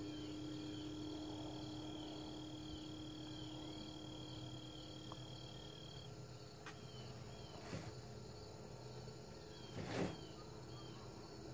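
Crickets chirping in a steady repeating pattern, with a high continuous insect trill that stops about halfway through, over a faint low hum. A brief noise near the end is the loudest moment.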